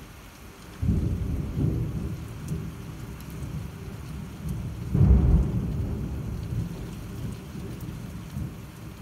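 Thunder rolling over heavy rain: a deep rumble sets in about a second in, swells again and is loudest at about five seconds, then slowly dies away, over the steady hiss of the downpour.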